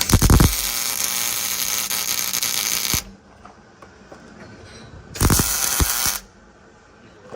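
Electric arc welder joining a steel roll-cage tube: a steady crackling sizzle for about three seconds, then, after a pause, a second burst of about a second.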